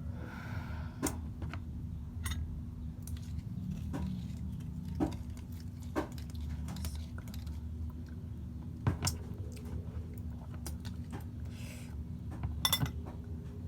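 Eating sounds: chewing with scattered sharp clicks and clinks of cutlery or dishes over a steady low hum.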